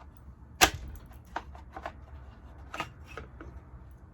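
Irregular clicks and light knocks of objects being handled, with one sharper knock just over half a second in.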